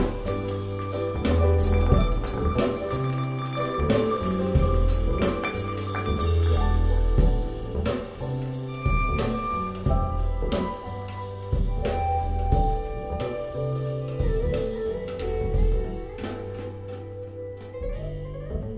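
Live jazz-pop band recording with drum kit, bass and held melodic notes, played back over KEF R3 Meta bookshelf speakers and recorded in the listening room. The drums and cymbals drop out near the end, leaving the lower instruments.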